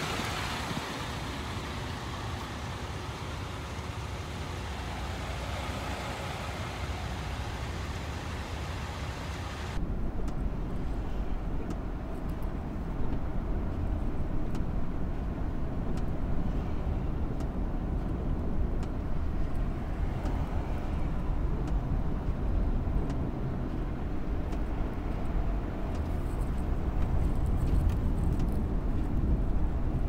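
Traffic noise from vehicles idling in stopped traffic on a snowy road. About ten seconds in this cuts to a steady, louder low rumble of engine and tyres on a snow-covered highway, heard from inside a moving vehicle.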